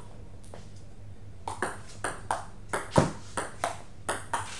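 Table tennis rally: the ball clicks off the bats and the table in quick alternation, about ten hits. It starts with a single hit and then picks up pace, and the loudest hit comes about three seconds in.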